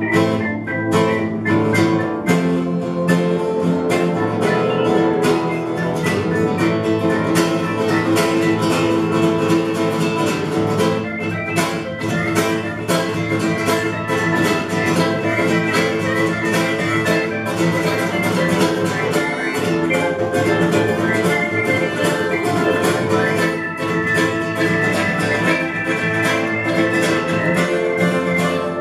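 Live blues band playing an instrumental passage: harmonica notes held and bent over strummed guitar.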